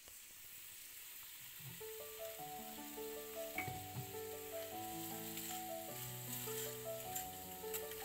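A pot of polenta simmering with a sizzling hiss as it is stirred with a wooden spoon. Background music with a slow melody of held notes comes in about two seconds in and plays over it.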